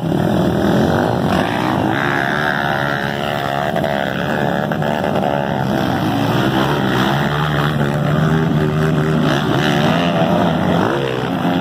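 Several dirt bike engines revving hard through a muddy water crossing, their pitch rising and falling as the riders work the throttle.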